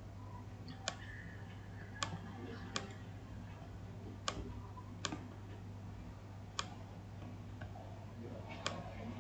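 Computer mouse clicking: about seven single, sharp clicks at irregular intervals, over a low steady electrical hum.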